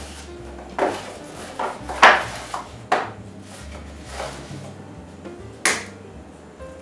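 Egg carton handled on a stone countertop, a cluster of short knocks and taps as it is set down and eggs are lifted out. Near the end one sharp crack, an egg being broken on the rim of a glass mixing bowl. Quiet background music runs underneath.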